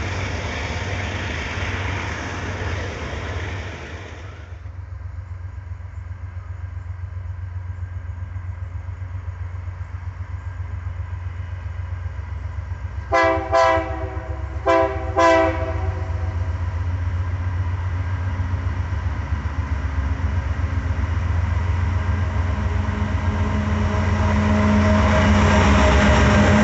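Diesel freight locomotives running under load with a steady low engine rumble. About halfway through, the lead locomotive's air horn gives four short blasts in two pairs. Near the end the engine noise swells as the locomotives pass close by.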